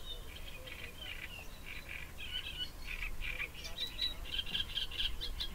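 Small birds chirping and singing in short, high notes, with a quicker run of repeated notes in the second half.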